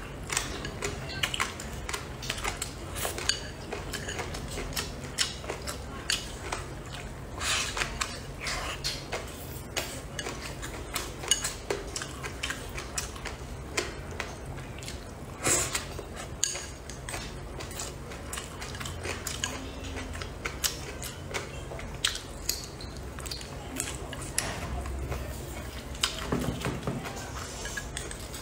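Close-up eating sounds: chopsticks clicking irregularly against a ceramic bowl, with chewing and slurping of squid and rice noodles.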